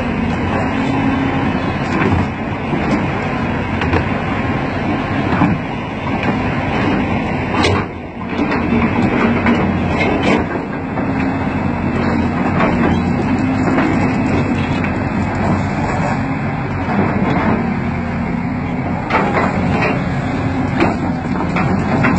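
Caterpillar 320D excavator's diesel engine running steadily, with irregular sharp metallic clanks of the steel crawler track as a thrown track is worked back onto the undercarriage.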